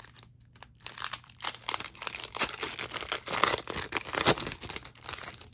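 A trading card booster pack wrapper being torn open and crinkled by hand: a run of irregular crackles and rips, loudest a little past the middle.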